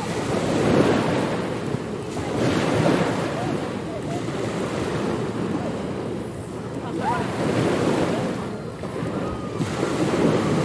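Ocean surf on a beach: waves breaking and washing in, the rush of water swelling and easing every two to three seconds.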